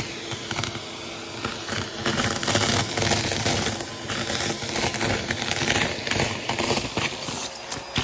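Vacuum cleaner running with its nozzle in a heap of confetti, sequins and glitter on carpet, the pieces crackling and rattling as they are sucked up, over a steady motor hum.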